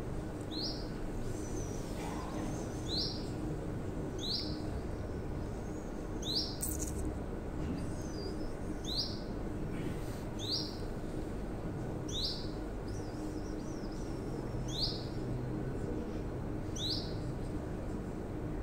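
Caged canary giving short single chirps, each note sweeping down in pitch, one every second or two.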